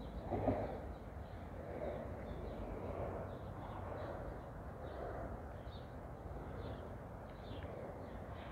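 Faint small birds chirping over a steady low rumble, with soft footsteps about once a second.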